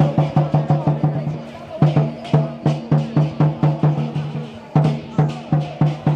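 Dragon-dance drumming: a large drum beaten in a fast, even rhythm of about four beats a second, with short breaks in the beat about two and four and a half seconds in.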